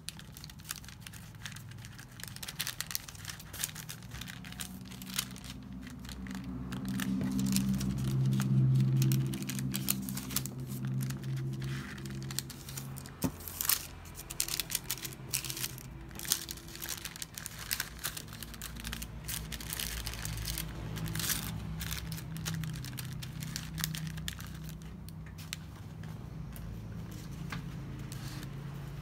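Thin translucent wrapping paper rustling and crinkling as it is folded by hand around a small package, with many short sharp crackles. A low hum swells for several seconds near the middle, then carries on more faintly.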